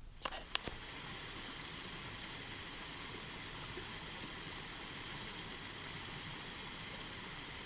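Rushing stream water running over rocks in rapids, a steady even hiss. A couple of sharp clicks about half a second in.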